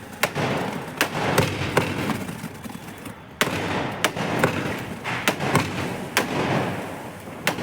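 Sky shot aerial fireworks going off: a run of sharp bangs at irregular intervals, about one or two a second.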